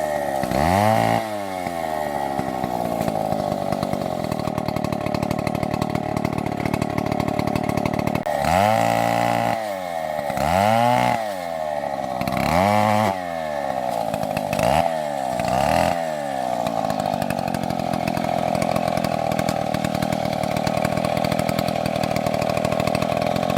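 Two-stroke chainsaw running: it is revved in short bursts several times, rising and falling in pitch, between stretches where it is held steady at high speed, as when cutting wood.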